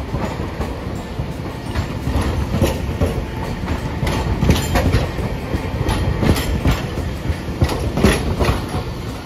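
Hiroden articulated tram rolling slowly past at close range, its steel wheels clacking over the track joints with a low rumble. The clacks come thickest when the cars are alongside, about four to eight seconds in.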